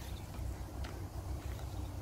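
Low, fluctuating rumble of wind on the microphone, with a couple of faint clicks.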